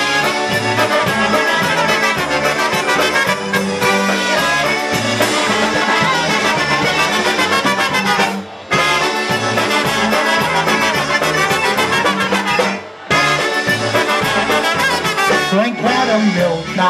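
Live polka band playing an instrumental break: two trumpets carry the melody over accordion and drums. The music drops out briefly twice, about halfway through and again near three-quarters of the way.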